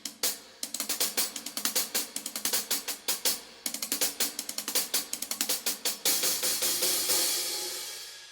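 Pergamon hand-hammered Turkish cymbals played in a drum-kit groove with drums: rapid, steady cymbal strokes, then about six seconds in a louder cymbal wash that rings out and slowly fades.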